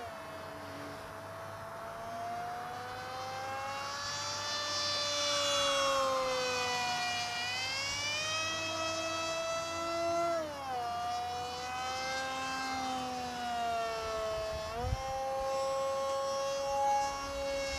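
Multiplex FunJet RC model jet's electric motor and pusher propeller whining in flight, the pitch gliding up and down and dropping sharply twice, about ten and fifteen seconds in. A brief knock about fifteen seconds in.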